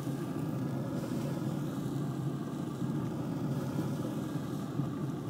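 Steady low hum and rumble of a running Traeger pellet grill, its fan turning over evenly while it holds cooking temperature.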